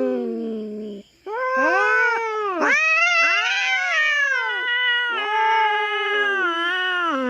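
Cat caterwauling: a drawn-out yowl ends about a second in, then after a brief pause a long, wavering yowl rises and falls in pitch for about six seconds. It is the threatening yowl of cats facing off over territory.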